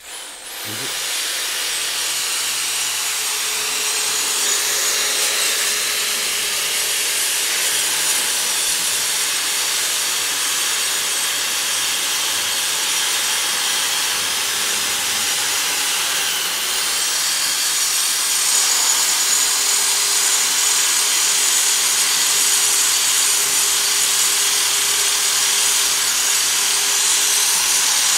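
Angle grinder running steadily against a forged steel scroll clamped in a vise, cleaning and smoothing the metal, a continuous high grinding hiss. It starts abruptly and gets slightly louder about two-thirds of the way through.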